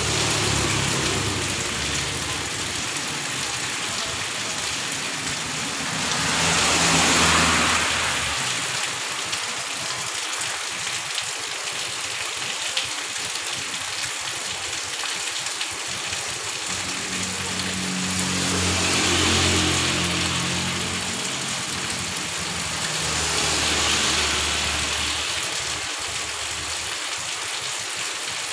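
Heavy rain falling steadily on a street, a constant hiss. Motorbikes pass on the wet road several times, each passing swelling up and fading away with engine and tyre hiss on the wet surface.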